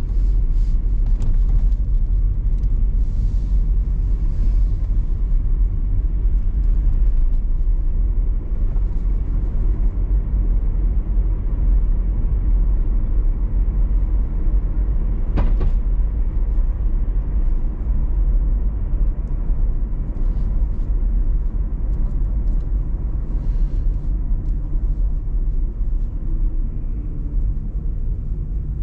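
Steady low rumble of a car being driven: road and engine noise, with a sharp click about halfway through.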